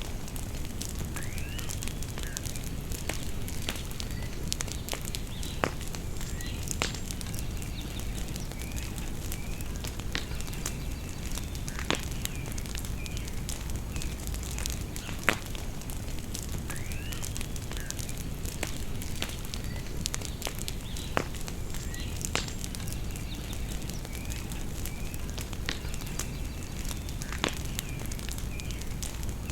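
Bonfire crackling, with sharp pops every few seconds over a low steady rumble. Birds chirp around it, and a short phrase of sweeping whistled notes comes twice.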